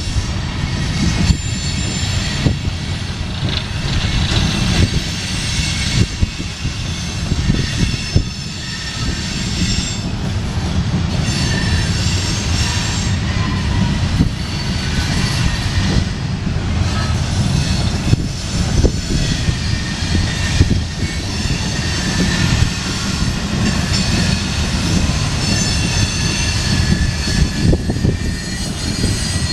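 Loaded CSX coal train's hopper cars rolling past close by, wheels clattering and rumbling over the rails. Steady high-pitched squealing comes from wheel flanges as the train takes the curve onto the westbound line.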